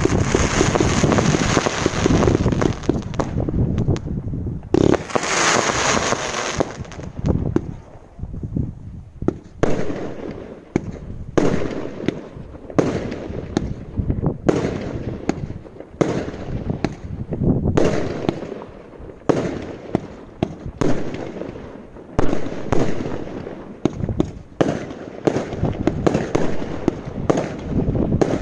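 Category 2 and 3 consumer fireworks going off in a rapid, irregular string of bangs and bursts, with a stretch of hissing about five seconds in.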